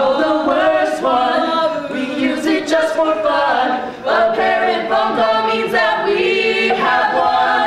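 A group of men and women singing together, holding and changing notes in chorus, with no clear instrumental backing.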